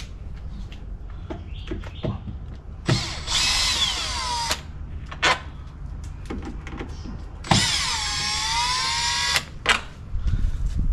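Cordless drill undoing screws on the cassette toilet housing: two bursts of motor whine, each about two seconds long, with small clicks between them.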